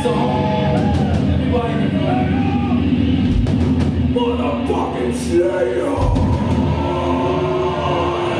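Heavy metal music from a band, with wailing vocals over it.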